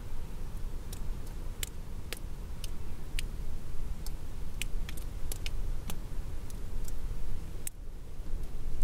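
Light rain: scattered raindrops ticking at irregular intervals over a low, steady wind rumble.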